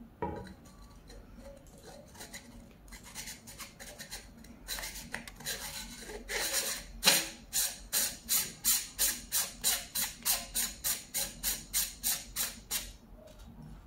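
Sunshade being screwed onto the objective bell of an ohhunt 6-24x50 rifle scope: the threads rasp in a long run of short, even strokes, about three to four a second, as it is twisted on. A single knock comes just after the start.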